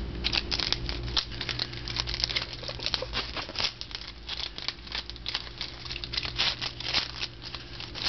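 Trading-card pack wrapper crinkling and tearing as it is opened, with cards being handled, in a dense run of irregular crackles over a low steady hum.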